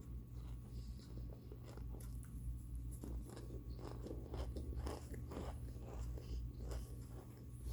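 Close-up crunching and chewing of microwaved cornstarch chunks: a run of irregular crisp crunches, several a second at times.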